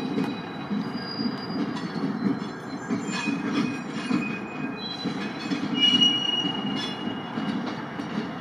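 CN freight train rolling through a track junction: a steady, rhythmic rumble of wheels on rail, with wheel flanges squealing at several high pitches, the longest and loudest about six seconds in, and a few sharp clanks.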